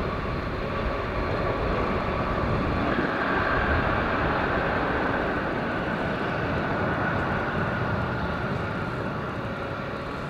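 Boeing 777F jet engines roaring during the landing roll, a steady loud rush with a whine that comes in about three seconds in and slowly falls in pitch.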